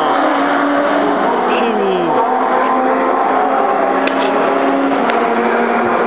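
A race car engine passing at speed, its pitch dropping sharply over the first two seconds as it pulls away. After that a steady, high-revving engine drone carries on.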